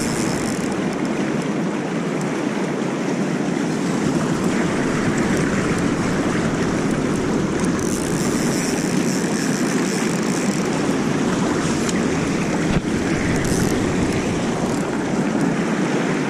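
River current rushing steadily, with a single short click about thirteen seconds in.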